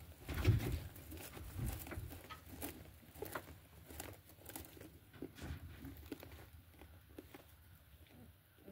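Soft rustling and scattered small clicks of straw and fur bedding in a rabbit nest as the newborn kits shift about, with a low bump about half a second in.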